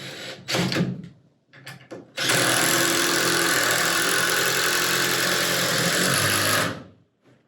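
Cordless drill with a Phillips bit driving a screw into a wooden window jamb: a few seconds of steady run that stops abruptly, after a couple of short knocks as the bit is set.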